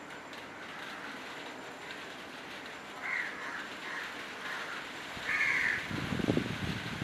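A bird calls a few times, with short harsh calls about three seconds in and again a little past five seconds, over a steady background hiss. A louder low rumbling noise starts about six seconds in.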